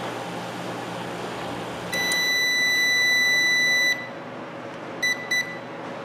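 Sharp R-307KW Carousel microwave oven humming as it runs, then shutting off about two seconds in with a long two-second beep, followed a second later by two short beeps: the end of a heating cycle, the oven working normally again after its bad high-voltage capacitor was replaced.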